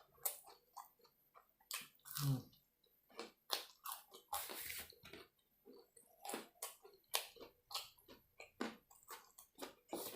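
A person chewing a mouthful of food close to the microphone, with irregular wet smacks and crunches. A short low hum comes about two seconds in.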